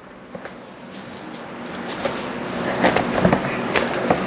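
Commercial food-service plastic film crinkling and rustling as it is wrapped tightly around a piece of pork ribs. It grows louder, with sharp crackles from about two seconds in.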